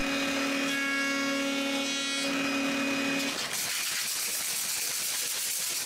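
Router in a router table running with a steady hum while rounding over the edge of a small wooden panel. About three and a half seconds in, the hum gives way to the hiss of a random orbit sander sanding wood.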